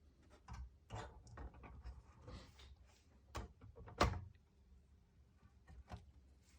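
PlayStation 3 motherboard being handled and set back into the console's case: scattered light clicks and knocks, with one louder knock about four seconds in.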